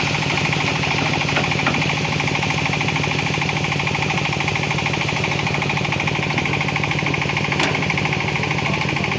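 Diesel engine of a Hitachi ZX200 hydraulic excavator running steadily under work, with a fast even pulsing. A single sharp click sounds near the end.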